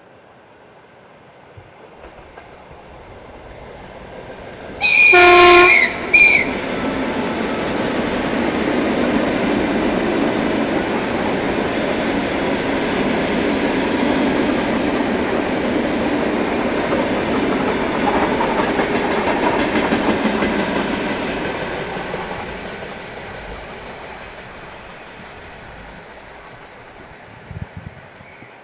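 ED2T electric multiple unit approaching and passing. Its horn sounds a longer blast about five seconds in and a short one just after, then the rumble and wheel clatter of the cars swells, holds for about fifteen seconds and fades as the train draws away.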